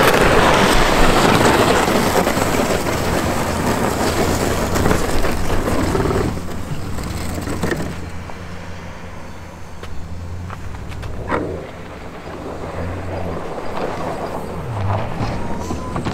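Pickup truck running and dragging a pull plow across snow-covered pavement. The noise is loud for about the first six seconds, then drops to a lower, steadier rumble as the truck moves off.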